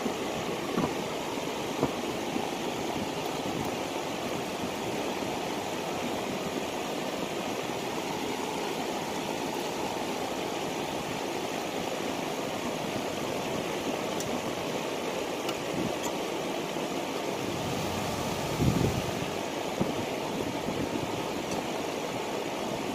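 Steady rushing background noise, with a few scattered light knocks and clunks of parts and tools being handled during engine work; the loudest clunk comes about 19 seconds in.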